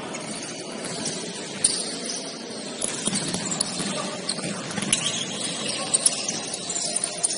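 Basketball game play in a gym: steady room noise with scattered sharp knocks and short high squeaks, the ball bouncing and sneakers on the court.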